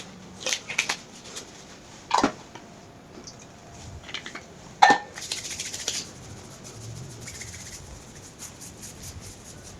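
Equipment being cleared away by hand: scattered light clicks and knocks, a louder knock about two seconds in, and a ringing clink about five seconds in, followed by a brief rustle.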